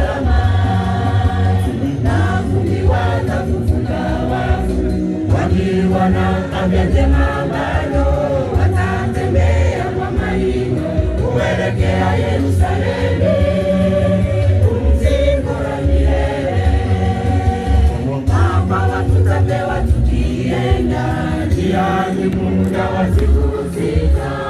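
Church choir, mostly women's voices, singing a gospel song together, with a deep bass line underneath.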